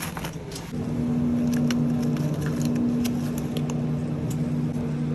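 Steady low electrical hum of a supermarket refrigerated display case, coming in about a second in, with a few light clicks and rattles over it.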